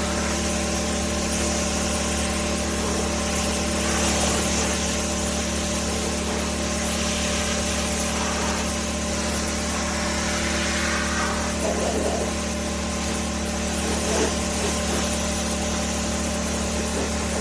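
Pressure washer running: a steady motor hum with the hiss of the spray, unbroken, with a few small swells.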